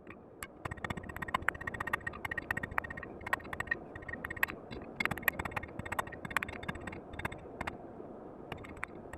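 Many irregular light metallic clicks and taps, each ringing briefly, over a steady rushing noise.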